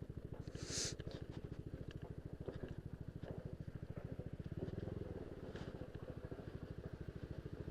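Yamaha Aerox scooter's single-cylinder engine idling, with a steady, fast, even pulse.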